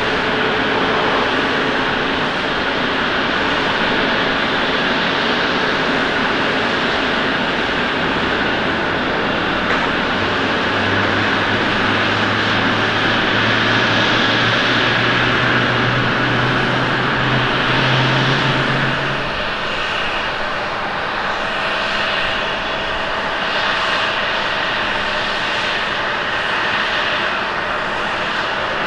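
Jet engines of an All Nippon Airways Boeing 777-200ER during the landing rollout, a steady jet noise with a low tone that climbs in pitch over the last several seconds. About 19 seconds in it gives way to the quieter, steady jet noise of a Japan Airlines Boeing 767-300ER on final approach.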